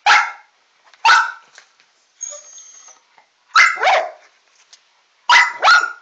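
A dog barking in five short, sharp barks, the last two in quick succession near the end, with a faint high whistle between them a little after two seconds.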